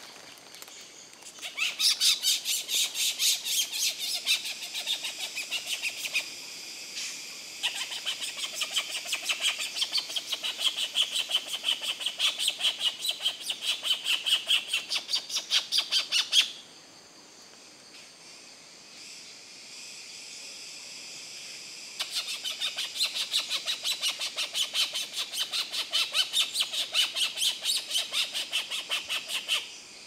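A loud wild animal call of rapid, even pulses, about three to four a second, in two long bouts: the first lasts about fifteen seconds and cuts off suddenly, the second starts about five seconds later and runs on to near the end.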